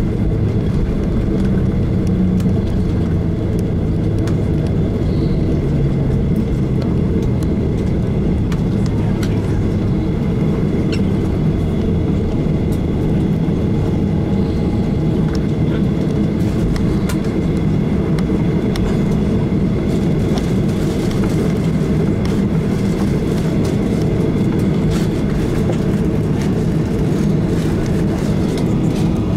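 Cabin noise of a Boeing 737-800 rolling on the ground after landing: a steady low rumble from its CFM56 engines and wheels, with a faint steady whine. Light clicks and rattles come more often in the second half.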